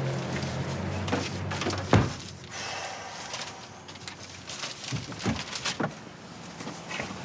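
A car's engine idling with a low steady hum that fades out at a single loud thump about two seconds in, followed by quieter scattered clicks and handling noises inside the car.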